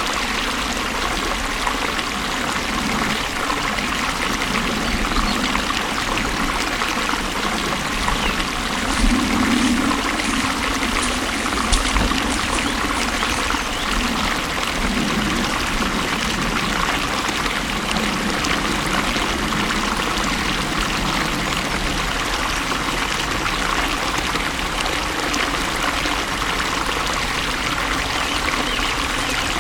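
Flowing water rushing and trickling steadily, with a couple of brief, slightly louder gurgles about a third of the way in.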